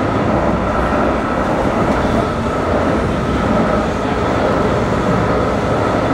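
Steady running noise of a Brightline passenger train at speed, heard inside a coach's vestibule: an even rumble of wheels on rail with a faint steady whine above it.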